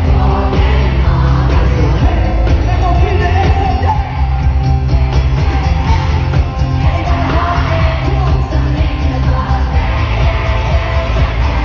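Live pop music at an arena concert: sung vocals over a band track with a heavy, steady bass.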